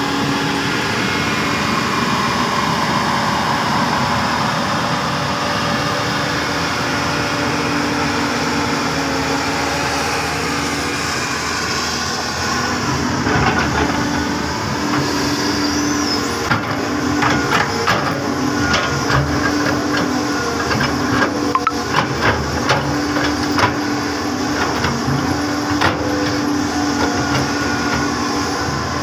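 A Hyundai Robex 330LC-9S crawler excavator running steadily at work, its diesel engine and hydraulics making a continuous hum. From about halfway, repeated sharp metal clanks and knocks come on top.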